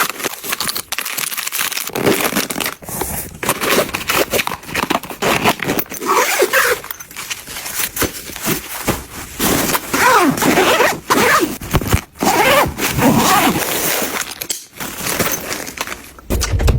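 Close-up handling of packaging and small household items: a busy stream of tearing, rustling and scraping, broken by many sharp clicks and knocks as things are opened and set down.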